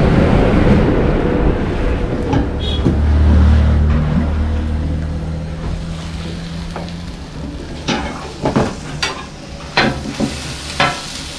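Food frying and sizzling on a flat iron griddle while metal spatulas stir and scrape it. A low engine-like hum swells and fades in the middle. From about eight seconds in come several sharp metal clanks, typical of kotthu blades chopping roti on the griddle.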